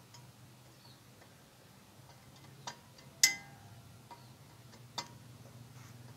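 A socket ratchet wrench tightening a steel engine-guard bolt: a few sharp metallic clicks a second or two apart, the loudest a little past halfway with a brief metallic ring. A steady low hum runs underneath.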